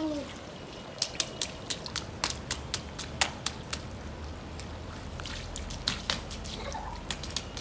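Water dripping and splattering in quick, irregular sharp drops: a run of them starting about a second in, then a pause and a few more near the end.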